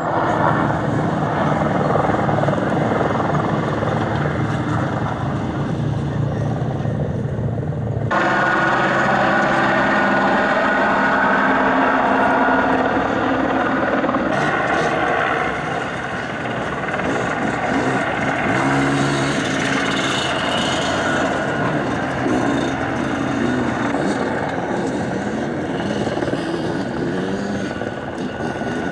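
Several dirt bike engines running and revving, their pitch rising and falling unevenly as the bikes work up a rocky hill climb. The engine mix changes abruptly about eight and fourteen seconds in.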